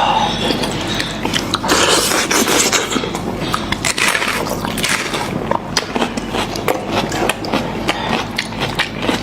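Close-miked eating sounds from a mukbang of sheep and goat head: chewing, tearing and scraping at the meat, with many short sharp clicks throughout.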